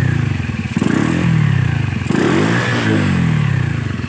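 CT100 motorcycle's 100 cc single-cylinder four-stroke engine being revved with repeated throttle blips. Its pitch rises and falls about twice, then eases back toward idle near the end.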